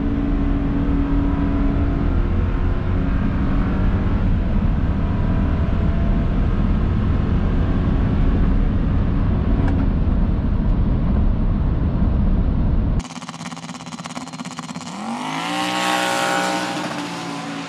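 A GMC Sierra's 2.7-litre turbocharged four-cylinder pickup runs down the drag strip: a steady, loud, deep rumble of engine and road noise. About thirteen seconds in, the sound cuts off abruptly and another vehicle passes by, its engine pitch rising and then falling as it goes past.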